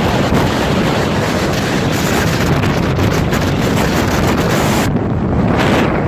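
Strong gusting wind in a mountain snowstorm blowing straight across the camera microphone, a loud, steady rush; the high hiss drops away about five seconds in.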